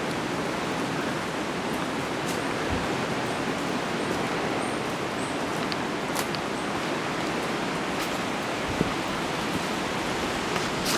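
Steady, even rushing noise of forest ambience with a few faint, brief clicks.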